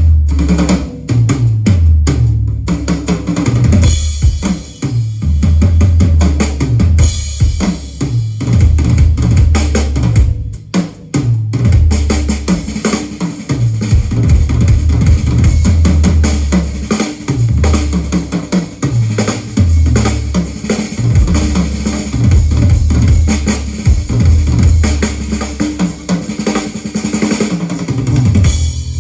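Drum-heavy music with a strong bass drum, played loud through an FBT ProMaxx 114a speaker in a sound check.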